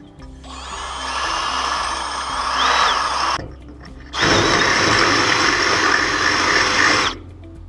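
Electric drill drilling into a metal light-fixture part, running in two bursts of about three seconds each with a short pause between.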